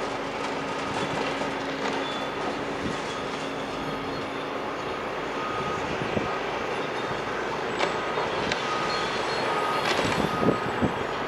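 Heavy demolition machinery working steadily, with a few sharp clicks and knocks toward the end.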